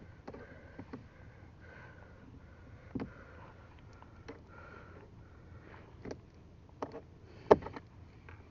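Small clicks and scrapes of a tape-wrapped knife tip prying at a plastic mirror adjustment knob, with one sharper click about seven and a half seconds in. Sniffing and breathing come between the clicks.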